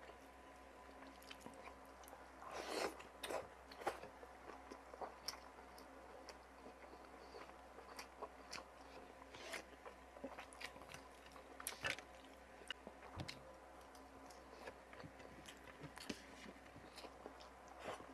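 A person chewing and biting food close to the microphone, eating fried round scad (galunggong) and adobo water spinach: scattered sharp mouth clicks and crunches, with louder bites about three seconds in and again near twelve seconds.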